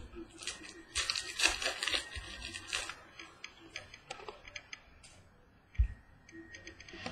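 A trading-card pack wrapper being torn open and crinkled, with small clicks from the cards being handled. There is a single dull thump a little before six seconds in.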